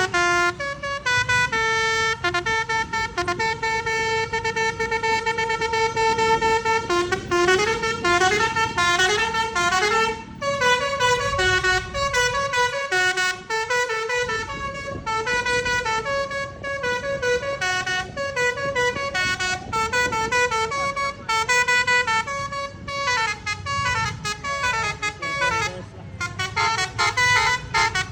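Telolet multi-tone bus horn playing a long melody of stepped notes: one note held for a few seconds early on, then quick runs of changing pitches that go on almost without a break.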